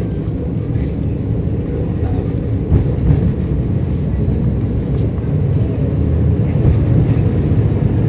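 KiHa 52 diesel railcar under way, heard from inside the passenger cabin: a steady low diesel-engine drone and running rumble of the wheels on the rails, with a few faint ticks and rattles.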